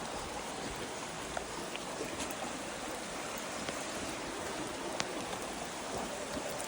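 Steady rush of running creek water, with a few faint drips.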